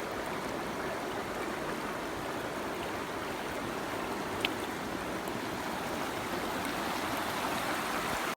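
Mountain stream water rushing steadily, with one short sharp click about four and a half seconds in.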